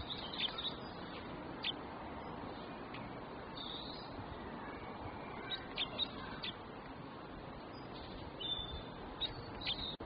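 Birds chirping: short, sharp high calls come in small clusters, near the start, around the middle and near the end, over a steady background hiss.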